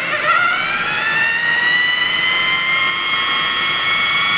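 Food processor motor starting up and running, its whine rising in pitch over the first couple of seconds and then holding steady as it blends chickpeas, tahini and lemon into hummus.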